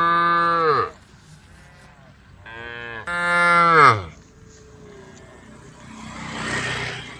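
Cows mooing, calling to the herd: one long moo ends about a second in, and a second long moo follows about two and a half seconds in, dropping in pitch as it ends. A rushing noise swells near the end.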